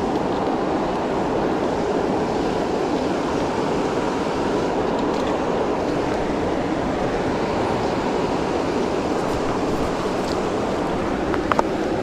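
Steady rushing of flowing river water, with two short sharp clicks near the end.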